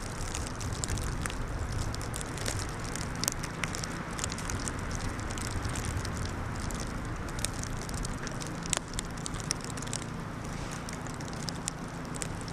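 Steady wind noise with a low rumble on the microphone, with many scattered light ticks and crackles throughout.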